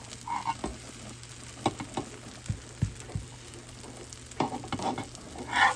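Wheat dosa batter sizzling on a hot pan, with a few short knocks and scrapes of a cooking utensil.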